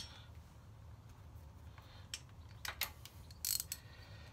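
Hand socket ratchet clicking on a stiff engine-mount nut: a few separate clicks about two seconds in, then a short run of clicks near the end.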